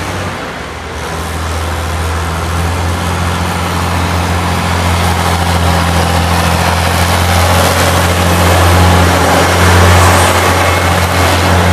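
Heavy vehicle engine running with a deep steady drone and road noise, growing louder through most of the stretch as it draws closer.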